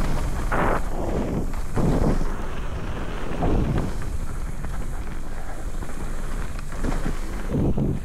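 Wind rushing over the microphone of a mountain bike descending a trail at speed, with tyre and frame noise and several brief louder jolts from bumps along the way.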